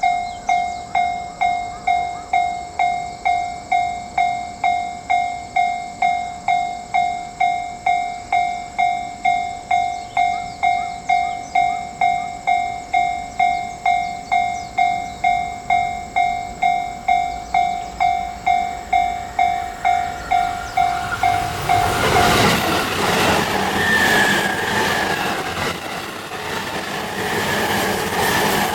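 Japanese railway level-crossing alarm bell ringing, a steady repeating ding a little under twice a second. About 22 s in, an E257 series limited express train passes through the crossing, and the loud rush of its wheels and running gear drowns out the bell.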